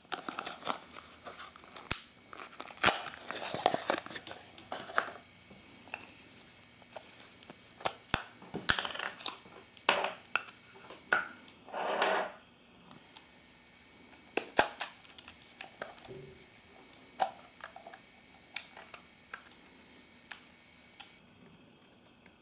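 Crinkling packaging and small plastic clicks as a roll of 35mm film is unpacked for loading. Busiest in the first half, then sparser clicks.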